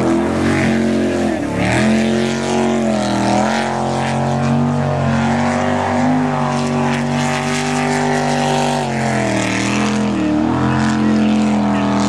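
Jet sprint boat's engine running hard at high revs, its pitch dipping and climbing again several times as the throttle is backed off and reapplied through the turns of the course.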